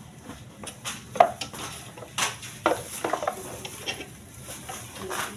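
Irregular metallic clinks and short scrapes of bolts and metal parts being handled while bolts are fitted to the spin motor mounting of a twin-tub washing machine; the sharpest clink comes about a second in.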